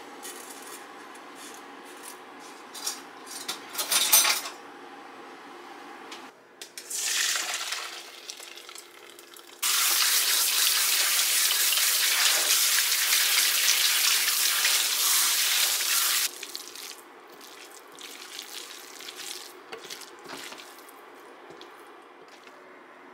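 Kitchen tap running hard into a stainless steel mesh colander as boiled somen noodles are rinsed. The rush of water lasts about six seconds and is the loudest sound. Before it come light clatter and a short splash, and after it soft clinks.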